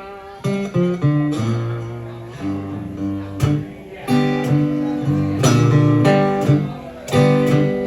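Acoustic guitar playing a slow blues break between sung lines: plucked bass notes and chords ringing out, with a fresh attack every second or so.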